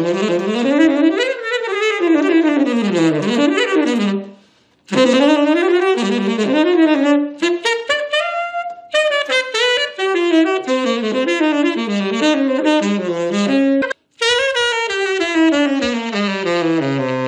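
Tenor saxophone played through a 3D-printed Sugal mouthpiece: fast jazz phrases running up and down, with a short pause about four seconds in and a brief break near fourteen seconds.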